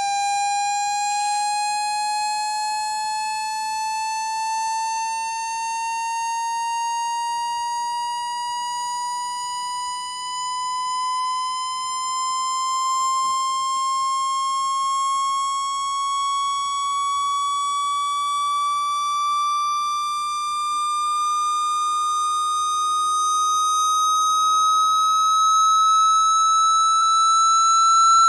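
A synthesized electronic tone, played as a speaker water-ejection sound, held without a break and slowly, evenly rising in pitch, growing a little louder toward the end.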